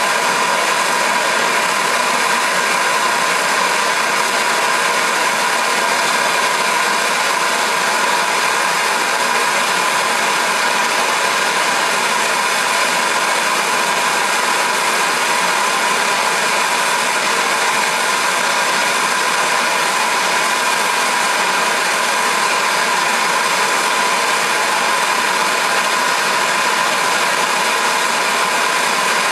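Handheld gas torch burning steadily, its flame heating the end of a knife's hidden tang: a loud, even hiss with a faint steady tone in it.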